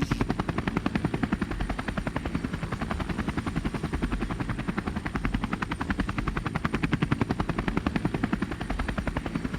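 Helicopter rotor sound effect: a rapid, even chopping beat that runs steadily.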